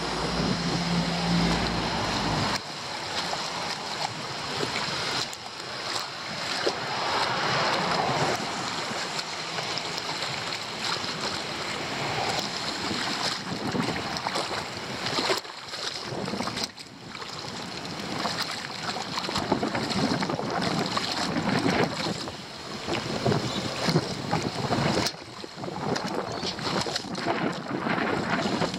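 Floodwater rushing and splashing at a leaf-blocked roadside drain, an uneven noise that swells and dips, with wind buffeting the microphone.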